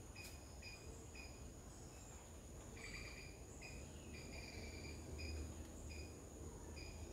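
Faint garden insect chorus: a steady high-pitched drone with a short chirp repeated about twice a second, a few of the chirps drawn out longer near the middle.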